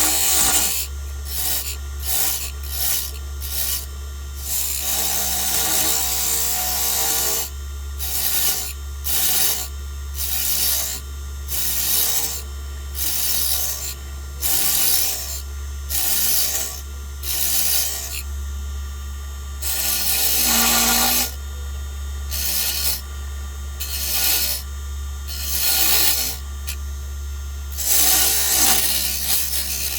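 Small wood lathe running with a steady low hum while a tool is pressed against the spinning wooden lure blank in repeated strokes, each giving a scraping hiss. Most strokes are short and come about once a second, with a few longer passes lasting two or three seconds.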